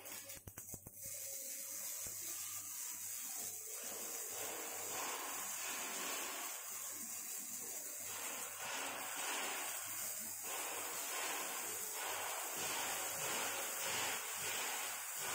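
Paint spray gun hissing steadily as it applies anti-rust and colour paint to a steel freight-wagon frame, the hiss shifting in tone every second or two.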